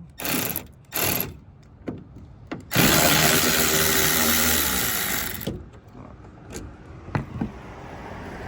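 Cordless drill driver with an 8mm socket backing out the reverse-light housing bolts on a Jeep Gladiator. A few short spins come first, then a steady run of about two and a half seconds, then a few sharp clicks near the end.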